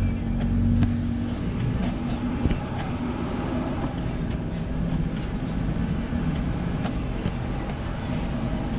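Kia Bongo 3 truck on the move: steady engine and road rumble with occasional light knocks and rattles.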